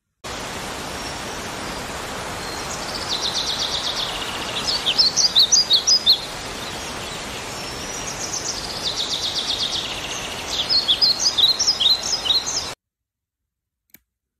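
Small songbirds chirping over a steady outdoor hiss: a quick high trill followed by a run of short chirps, then the same pattern again. The sound cuts off suddenly near the end.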